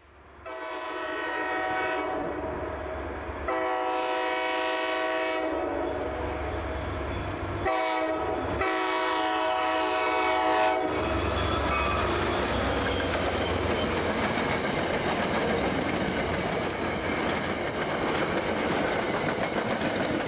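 Diesel locomotive's air horn sounding the grade-crossing signal: two long blasts, a short one, then a final long one, each a chord of several notes. After the last blast the train passes with a steady rumble and the clickety-clack of wheels over rail joints.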